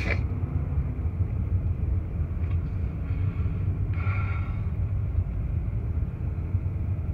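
Steady low rumble of a car's engine and road noise heard from inside the cabin as the car moves slowly.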